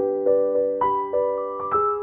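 Background piano music: a gentle melody of single struck notes, about three a second, each ringing on over held notes beneath.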